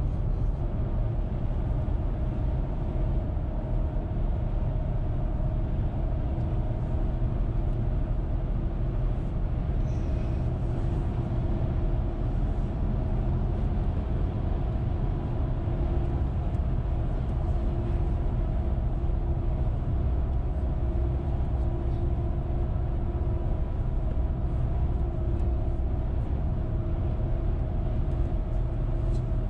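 Steady road noise of a car driving on the highway: an even low rumble with a faint steady hum over it.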